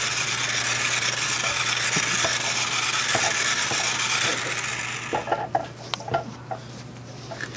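Toy RC car's small electric drive motor and plastic gears whirring as it drives a preprogrammed left circle, stopping about five seconds in; a few light clicks follow.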